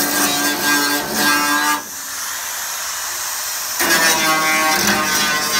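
Background music with plucked guitar-like notes. About two seconds in, the notes drop out for roughly two seconds, leaving a steady hiss, and then the music resumes.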